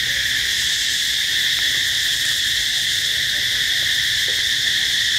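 Steady chorus of insects, a continuous shrill, high-pitched drone that holds without a break.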